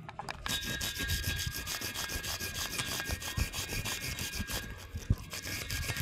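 Electric piston ring filer's abrasive wheel grinding a piston ring's end, a rapid rhythmic scraping over a steady motor whine that starts about half a second in. The ring end gap is being filed to size.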